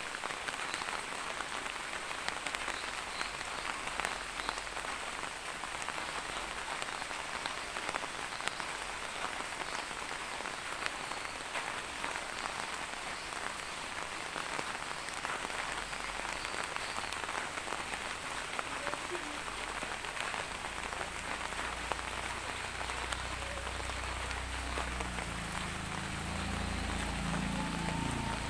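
Steady rain falling, with a dense, even hiss and many small drop ticks. In the last several seconds a low rumble rises underneath and grows louder toward the end.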